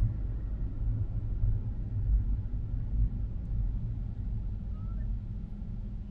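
Car driving along a paved road: a steady low rumble of tyre, road and engine noise.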